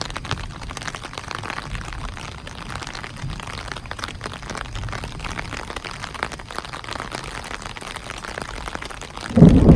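Steady rain falling during a night thunderstorm. Near the end a loud, low rumble of thunder starts suddenly.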